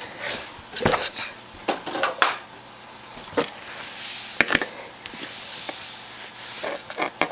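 Rubbing as the blade of a Victorinox Picnicker Swiss Army knife is wiped clean of juice, with scattered knocks and clicks from handling the knife.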